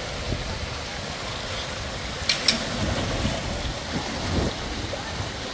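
Steady rushing noise of the outdoors, with two sharp clicks close together a little under halfway and a few low thumps later on.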